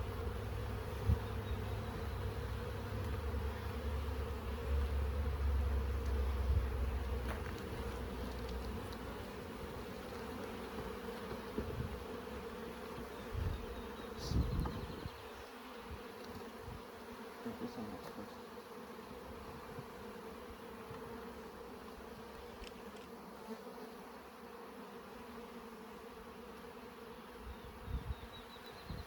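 Many honeybees buzzing steadily around an opened hive, a continuous hum. A low rumble sits under it for the first eight seconds or so, and there are a few soft knocks.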